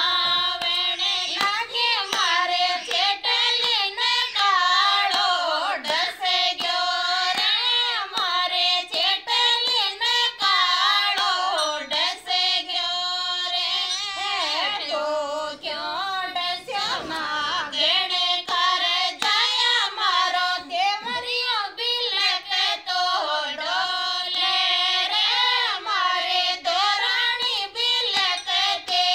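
Group of women singing a Rajasthani folk song to Tejaji, unaccompanied by instruments, with hand claps keeping time.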